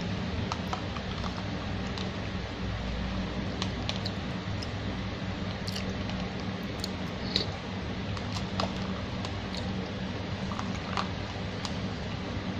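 Spoon clicking and scooping in a cup of iced bubur sumsum while it is eaten, with small wet squishing and chewing sounds, over a steady background hum.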